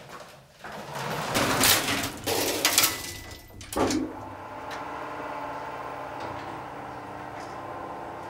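An old lift's metal doors and collapsible lattice gate are slid shut, rattling for a few seconds and ending in a sharp clank about four seconds in. Then comes a steady hum as the lift runs.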